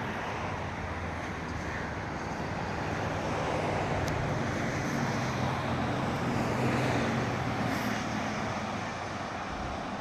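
Steady rushing of ocean surf, with a low engine hum that swells through the middle and fades again.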